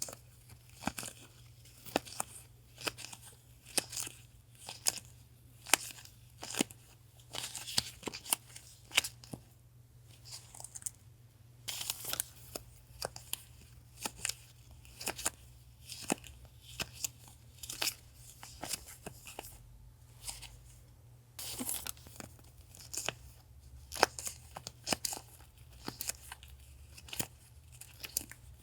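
Paper and plastic packaging handled, torn and crinkled by hand: an irregular string of sharp crackles and rips, over a faint steady low refrigerator hum.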